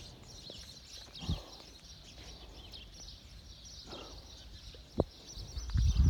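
Footsteps on stone paving, a few soft footfalls and one sharper click, with small birds chirping throughout and a low rumble on the microphone near the end.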